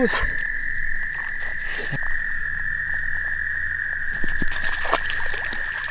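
Frogs calling in a steady, unbroken high trill, with a few faint clicks and rustles.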